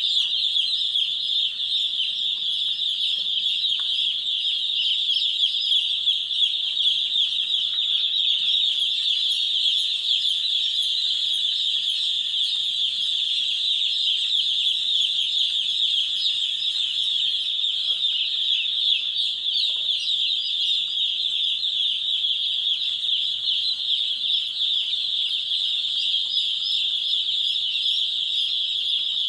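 Many poultry chicks peeping together in a dense, continuous chorus of high-pitched, short falling cheeps.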